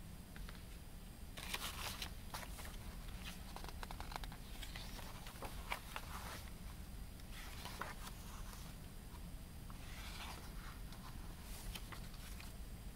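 Photobook pages being turned by hand, paper rustling and flicking in several short bursts over a low steady room hum.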